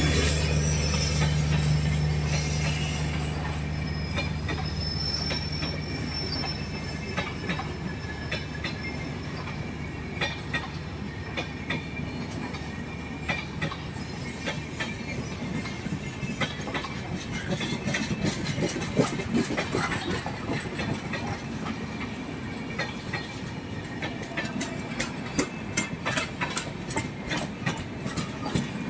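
LHB passenger coaches of an express train passing at speed: a continuous wheel rumble with sharp clickety-clack of wheels over rail joints, the clicks coming thicker and louder near the end. A low hum fades out over the first few seconds, and a thin high wheel squeal sounds briefly a few seconds in.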